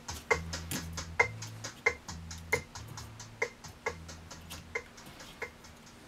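Music played through a bare Tesla ARN5606 165 mm bass driver with an added magnet: a ticking beat about two and a half times a second over a low bass line. The bass stops about two-thirds of the way through and the ticks fade as the song ends.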